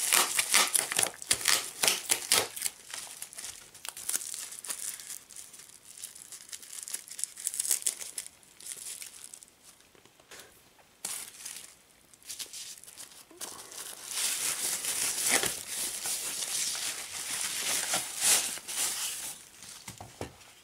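Plastic bubble wrap crinkling and rustling as it is pulled off a PC power supply, in crackly bursts: busiest in the first couple of seconds and again in the second half, with a quieter stretch in the middle.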